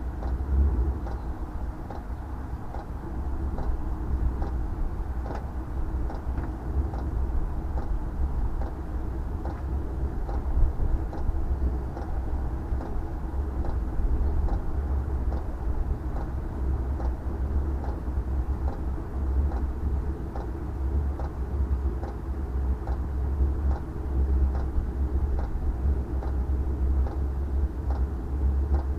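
Diesel air heater starting from cold: a steady low rumble from its combustion and exhaust, with the fuel dosing pump ticking evenly, a little under twice a second.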